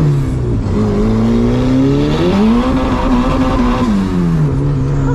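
Mazda Miata engine heard from inside the cabin, revs climbing for about two seconds, holding high, then dropping back about four seconds in and settling at a steady lower speed.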